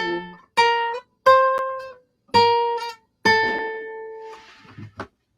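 Acoustic guitar playing the closing chords of a song: five separate strummed chords, each left to ring and fade. The last chord is held the longest.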